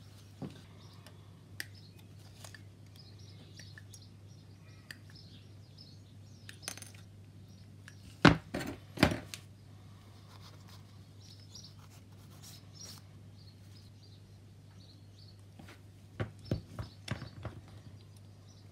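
Plastic model kit parts and a parts sprue being handled and set down on a cutting mat: scattered light clicks and knocks, two sharper ones about eight and nine seconds in and a quick run of them near the end, over a steady low hum.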